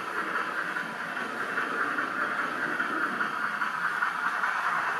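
Model locomotive running on a 00 gauge layout: a steady hissing rumble that grows slowly louder.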